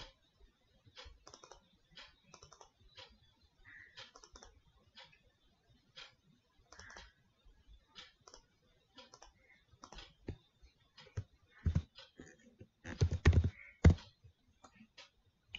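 Scattered single clicks of a computer mouse and keys, then a quick, louder burst of keyboard typing a little before the end.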